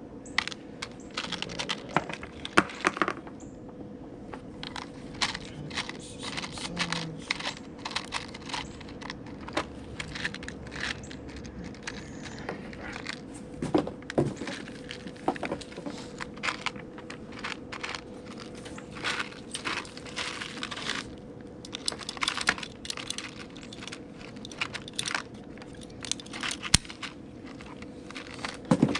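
Rummaging through a plastic small-parts organizer: screws and small hardware rattling and clicking in irregular bursts as compartments are searched, with a steady faint hum underneath.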